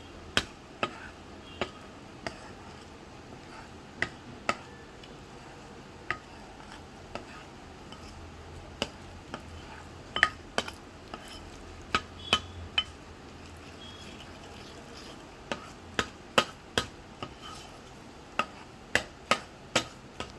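A spoon clinking and scraping against a bowl while stirring a flour and water batter, in irregular sharp taps, some single and some in quick runs of two or three.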